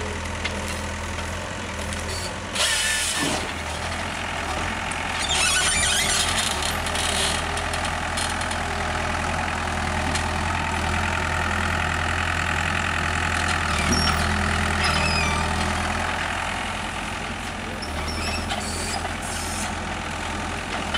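Tracked excavator carrying an Iwafuji GP-35A forestry processor head, its diesel engine running steadily with a low hum while the hydraulics work the head on a log. Noisy bursts come a few seconds in and again around six seconds, and a higher whine rises through the middle.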